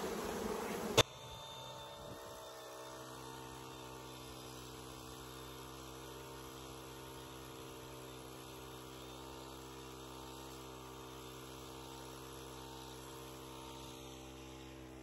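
Honeybees buzzing around an opened hive for about a second, then a sudden cut to a faint steady hum with several fixed tones. No leaf blower is heard.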